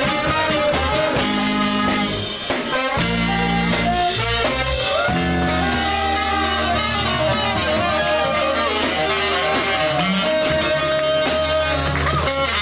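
Ska band playing live: a horn section of saxophones, trumpet and trombone holding melody notes over bass, guitar and drum kit.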